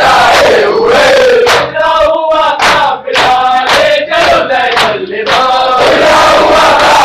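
A crowd of men chanting a noha in unison, loud and shouted. Sharp, regular strokes of hands striking chests (matam) come about twice a second and keep the rhythm.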